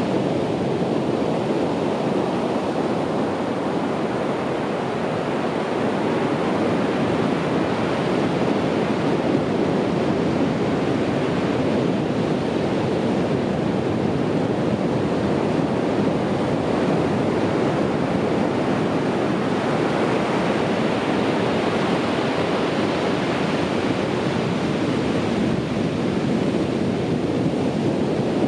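Ocean waves breaking on a beach: a steady, continuous wash of surf with no single wave standing out.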